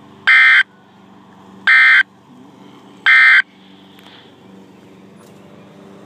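Three short bursts of the EAS/SAME end-of-message data tone from a radio's speaker, buzzy electronic warbles about a third of a second each and about 1.4 seconds apart. This is the code signal that marks the end of an emergency alert broadcast.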